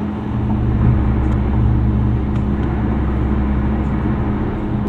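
Car driving, heard inside the cabin: a steady low engine hum with road and tyre noise.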